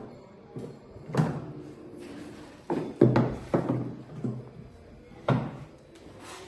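Knocks and clunks of a YOYOBin container and its new fork strap being handled: the container is lifted and set onto the strap, giving about half a dozen sharp hits with a short ring after each.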